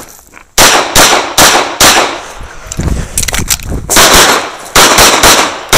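Pistol fire from a CZ 75 SP-01 AccuShadow shooting a practical-shooting stage: roughly a dozen sharp, loud shots in quick pairs and runs, with a short lull in the middle while the shooter moves or transitions targets.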